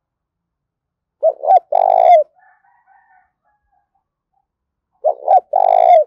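Spotted dove cooing twice, about four seconds apart: each phrase is two short coos followed by a longer one.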